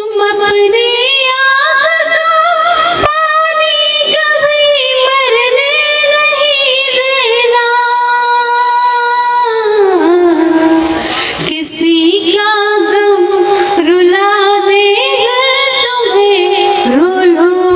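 A woman sings a Hindi poem in a melodic, sung style through a stage microphone. She holds long notes with a wavering vibrato and slides between pitches, and near the middle the line falls away and pauses briefly before she resumes.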